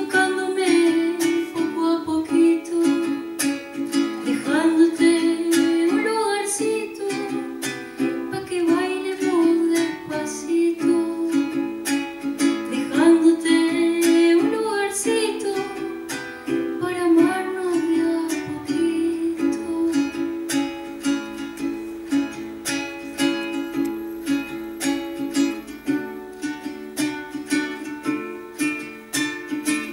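A woman singing to a small-bodied acoustic guitar, plucked and strummed. Her voice carries the first two-thirds. After about twenty seconds the guitar goes on mostly alone with evenly repeated plucked chords.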